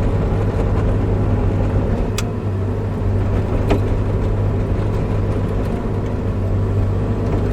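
Bobcat E55 mini excavator's diesel engine running steadily as the machine moves over carrying a log, heard from inside the cab. Two light clicks sound about two and three and a half seconds in.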